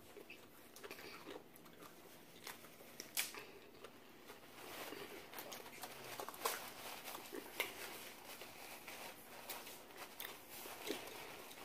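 Close-up eating sounds of fried chicken: soft chewing and mouth smacks with a few sharp clicks, and the crinkle of a paper napkin being handled.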